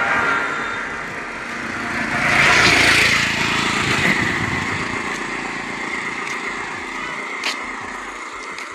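Road traffic: a small-engined three-wheeled auto-rickshaw passes close about two to three seconds in, and its engine noise fades slowly as it moves away down the road.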